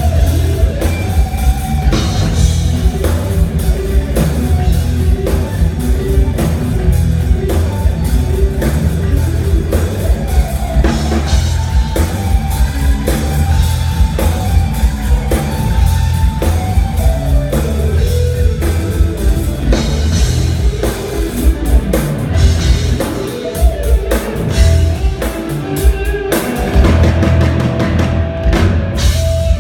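Instrumental rock jam: an electric guitar plays a bending lead line over a full drum kit, loud and steady throughout.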